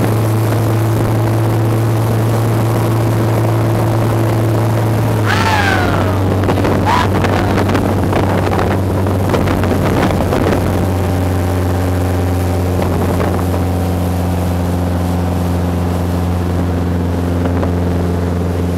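Motorboat engine running under way, with the rush of wind and wake water on the microphone. About five seconds in the engine note steps lower, and it drops again to a steadier, lower note near eleven seconds as the boat slows.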